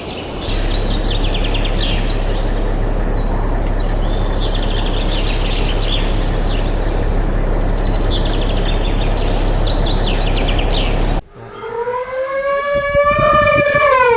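A noisy stretch of many short, high chirping calls over a steady low hum. About eleven seconds in, it cuts off and a long howling animal call begins, holding its pitch and then falling away at the end.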